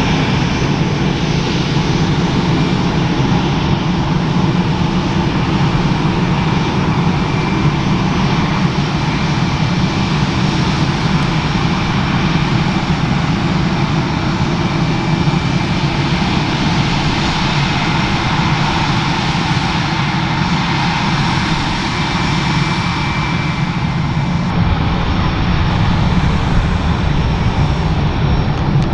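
Airbus A318 jet engines running, a loud, steady rushing noise with a low rumble and a faint steady whine, with no rise or fall as of a passing plane.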